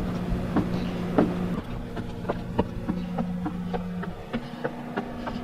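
Footsteps climbing wooden stairs, one knock about every half second or so, with a steady low hum behind them that comes and goes.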